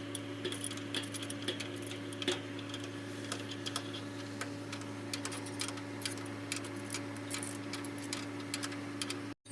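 Hand tools clicking and clinking on metal as bolts are worked loose, in irregular small ticks over a steady low hum. The sound drops out briefly near the end.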